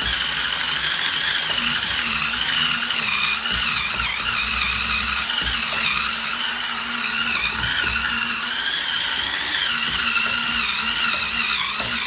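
Hurricane Spin Scrubber's motorized flat brush head spinning against wet bathroom tiles: a steady motor hum and whine that wavers slightly in pitch as the bristles scrub.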